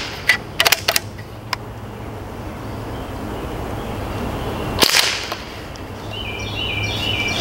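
Umarex Ruger 10/22 CO2 pellet rifle: a quick series of small metallic clicks as the action is worked, starting about a third of a second in, then one sharp shot a little before five seconds in.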